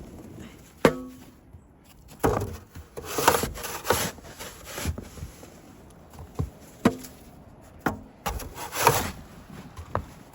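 Footsteps crunching in fresh snow, about one step a second, some with a short squeak.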